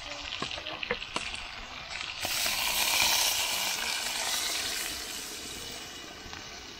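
Chicken sizzling in a hot cast-iron pot over a wood fire, with a few light clicks first. About two seconds in, red-tinted water is poured from a bowl onto the frying chicken and the sizzle flares up into a loud hiss, then slowly dies down as the liquid takes the heat.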